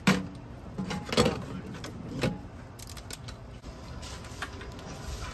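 Blue crab shells and claws clicking and knocking against a stainless-steel sink and metal bowl as the crabs are handled for cleaning: a string of sharp knocks and lighter clicks, the loudest right at the start and about one and two seconds in.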